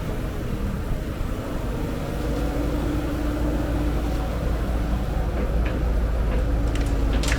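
Heavy diesel construction machine engine running steadily with a low rumble, growing a little louder toward the end, with a few short metallic clanks near the end.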